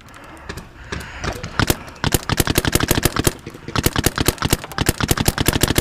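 Planet Eclipse EMF100 paintball marker firing: a few scattered shots, then from about two seconds in, rapid strings of shots at about eight a second.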